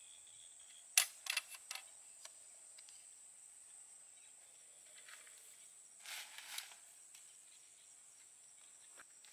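Metal tent-frame poles clicking and knocking as they are fitted together: a quick run of sharp clicks about a second in, then a brief rustle a few seconds later. A steady high insect drone runs underneath.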